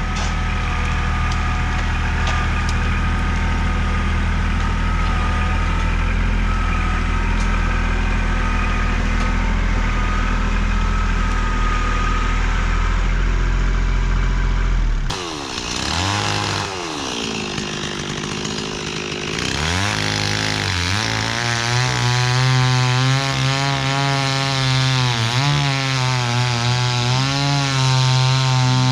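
A diesel tractor engine runs steadily with a low rumble for about fifteen seconds, then gives way suddenly to a Stihl chainsaw. The chainsaw revs up and down a few times, then holds at full speed, cutting through a tulip-tree log.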